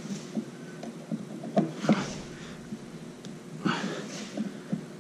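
A man breathing hard as he strains on a pipe wrench against a stuck nut, with two louder breaths about two seconds apart and a faint metal click or two.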